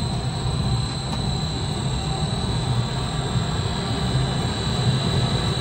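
Electric motor of an atta chakki (stone flour mill) running steadily, driving the millstones through freshly fitted V-belts: an even mechanical rumble with a constant high whine over it.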